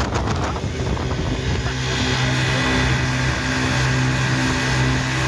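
Twin Chinese 40 hp outboard motors running at speed with a steady drone. Wind buffets the microphone for about the first second.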